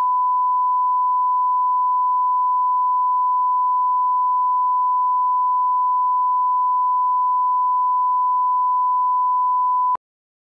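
A steady 1 kHz reference tone, the line-up tone that goes with SMPTE colour bars. It holds one pitch and cuts off suddenly near the end.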